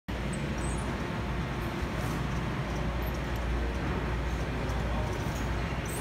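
Gym room noise: a steady low hum with a few faint ticks.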